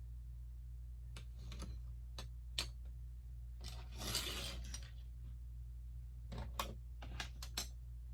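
Plastic LEGO pieces clicking and snapping together as they are handled and pressed on, in scattered sharp clicks. About four seconds in there is a rustle about a second long as pieces are moved about. A steady low hum runs underneath.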